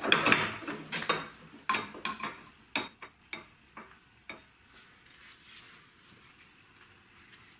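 A drill-driven cutting disc grinding through a metal tube, cutting out in about the first second, then a run of sharp metallic clinks that grow fainter and die away after about four seconds.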